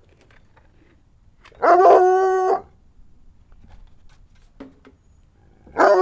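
Coonhound howling: one steady, even-pitched howl lasting about a second, starting about a second and a half in, and a second howl starting just before the end.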